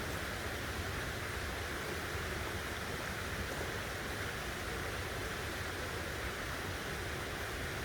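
Steady forest ambience: an even rushing hiss, like running water, with no distinct calls or events.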